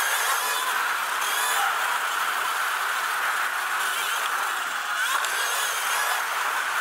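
Sur-Ron Light Bee electric dirt bike ridden along a dirt trail: a steady whine from its electric motor and drivetrain mixed with wind and gravel noise.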